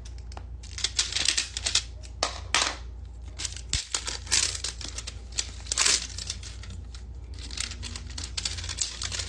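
Crinkly packaging being handled and torn open in a run of irregular crackles and rips, to get at a blind-bag squishy dumpling toy.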